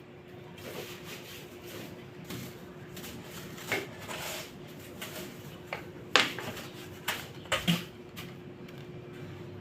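A few sharp knocks and light clatters, as of household objects being picked up and set down. The loudest knock comes a little past halfway, and two more come close together shortly after. A faint steady hum runs underneath.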